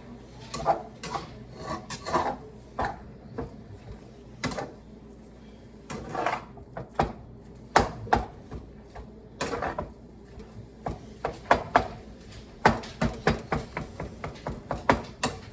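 A cooking utensil knocking and scraping against a pan while ground beef, onions and green peppers are stirred and broken up. The knocks come irregularly at first, then as a quicker run of taps over the last few seconds.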